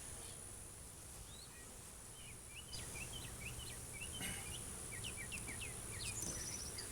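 Songbirds chirping: many short, quick chirps from a little over two seconds in, with a fast high trill near the end. Underneath is a low steady hum of honeybees from the open hive, and a thin steady high-pitched tone.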